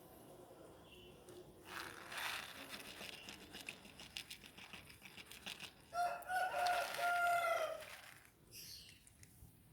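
A rooster crowing once about six seconds in: a broken start, then a long held note that falls away at the end. Before it, a crinkling, rustling noise runs for a few seconds.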